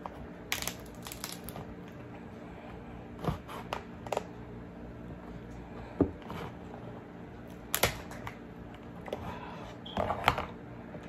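Cooked king crab shell cracking and snapping as the legs and claws are pulled and broken off the body by hand: a string of sharp, irregular cracks and clicks, the loudest about 8 seconds in and a quick cluster near 10 seconds.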